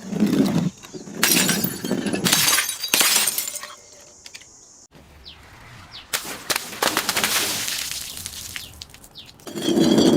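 Glass bottles being smashed and shattering: several sharp breaks in the first few seconds, then a longer stretch of crunching and clinking glass, and another loud break near the end.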